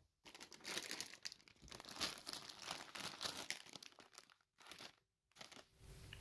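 Crisp packet being handled and torn open: faint, irregular plastic crinkling and rustling, with short pauses.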